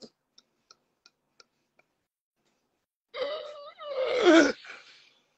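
A man laughing hard. For the first two seconds there are only faint short catches of breath, about three a second, then about three seconds in comes a loud, drawn-out wailing laugh whose pitch bends and falls at the end.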